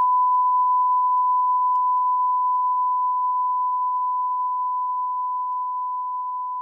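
Television test-pattern tone: one steady, pure beep at a single pitch that slowly grows quieter.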